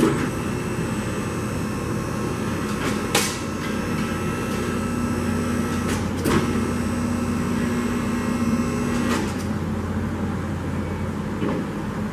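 Two-post car lift's electric hydraulic pump motor running as it raises a car body, with a few sharp clicks along the way; the motor stops about nine seconds in.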